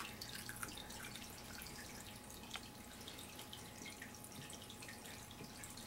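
Quiet room with faint, scattered small clicks and ticks.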